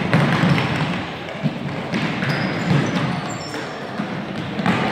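A group of kids running in sneakers across a hardwood gym floor: many quick overlapping footfalls, with a few short high squeaks of shoe soles.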